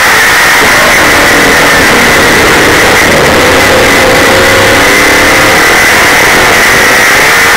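Super late model dirt race car's V8 engine running hard at race speed, heard from inside the car over loud wind and track noise. The engine note wavers up and down in pitch, shifting around the middle as the car works through a turn.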